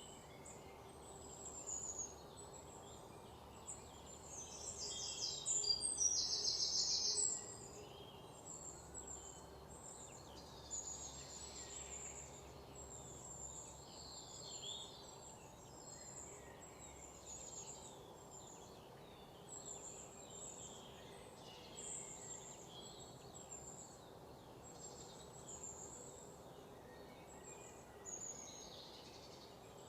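Forest birds singing and calling over a steady low rush of running water, with many short high chirps throughout. The loudest is a rapid, buzzy trill about five to seven seconds in.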